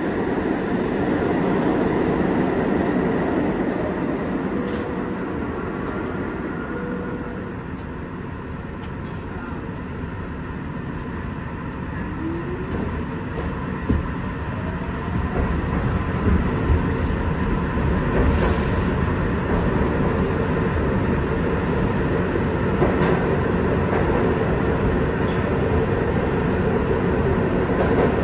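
Kawasaki R-62 subway train running through a tunnel, heard from inside the front car: a steady rumble with clatter of wheels over rail joints. About halfway through a whine rises in pitch as the train picks up speed, and the running noise grows louder, with a brief hiss a little later.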